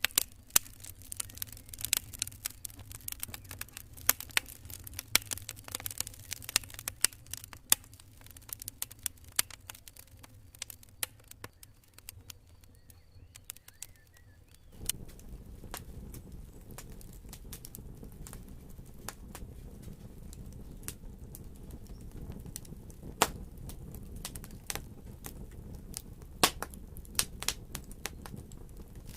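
Wood fire in a fireplace crackling, with frequent sharp irregular pops over the low rumble of the flames. The rumble grows louder about halfway through.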